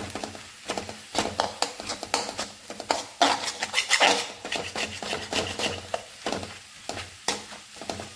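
Spatula scraping and knocking against a metal pan in quick, irregular strokes as egg is scrambled in it, loudest for a moment midway.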